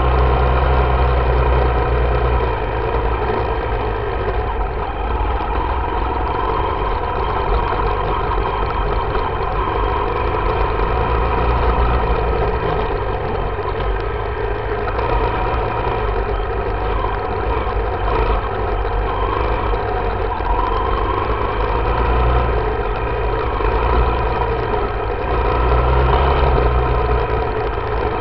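Yamaha YZ dirt bike engine running steadily at light, even throttle along a trail, picked up close by a camera mounted on the bike, with a few mild swells of throttle.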